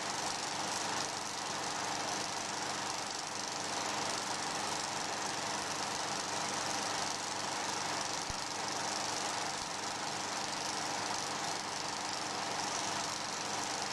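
Film projector running, a steady, even mechanical noise that does not change with the cuts in the picture.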